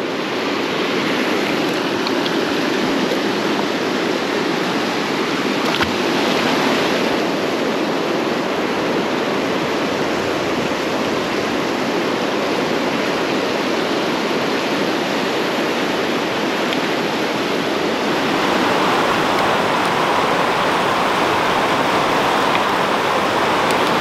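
Swift mountain river rushing over boulders and through riffles, a steady wash of water noise. About three-quarters of the way through it shifts in tone and grows a little louder.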